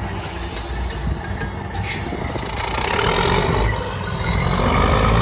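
Diesel semi-truck hauling a stainless-steel tanker trailer drives past, its engine running with a low rumble that gets louder over the last couple of seconds.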